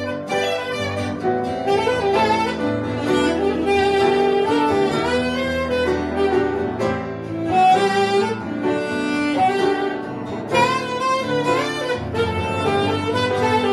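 Saxophone playing a melody over grand piano and acoustic guitar accompaniment in a live instrumental trio performance.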